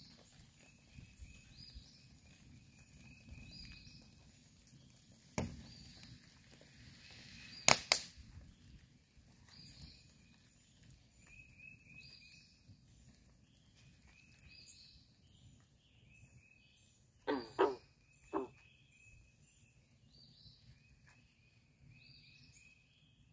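Birds singing outdoors, short high phrases repeated every second or two, with two sharp knocks early on and, about 17 seconds in, a brief run of lower pitched calls.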